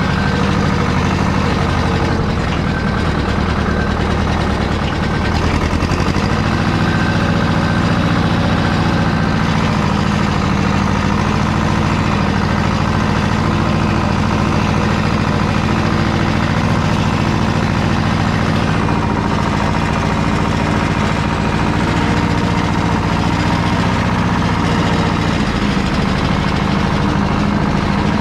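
Small tractor's engine running steadily at close range, its note shifting twice as the engine speed changes.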